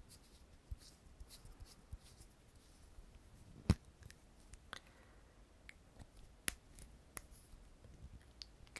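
Close-miked handling of a slim black makeup tool and fingers: scattered soft clicks and taps, the sharpest a little under four seconds in, with a few more crisp clicks later.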